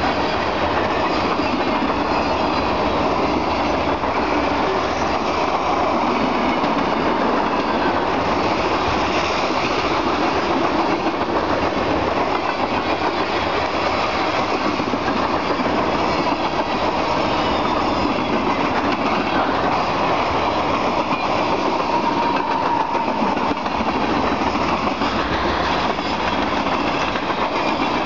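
Freight train cars rolling steadily past, steel wheels running on the rails in a loud, continuous clatter.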